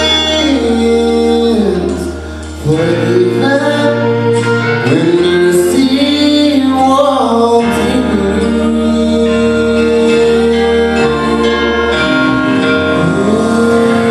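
A man sings a gospel song solo into a handheld microphone over instrumental accompaniment, holding long notes and sliding between pitches. The music drops briefly in level about two seconds in.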